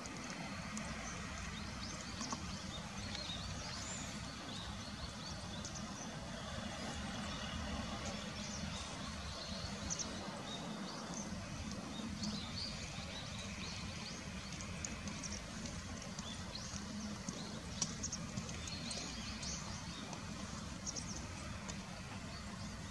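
Outdoor ambience: a steady low rumble, with small birds giving brief high chirps scattered throughout.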